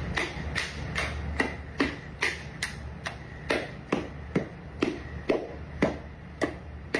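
A steady run of sharp knocks, about two or three a second, over a constant low hum.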